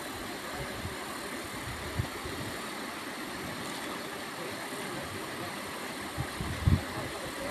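Shallow river water running over and between rocks: a steady rushing noise, with a few low thumps near the end.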